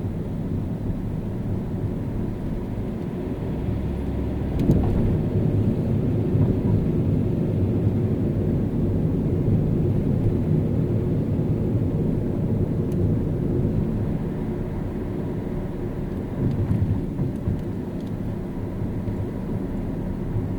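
Car driving on city streets: a steady low rumble of engine and tyres, with a sharp knock about four and a half seconds in, after which the rumble is a little louder.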